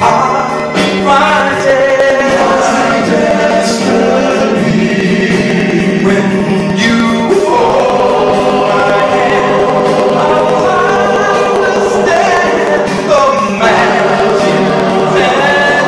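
A vocal ensemble singing through a sound system, with a male lead voice out front.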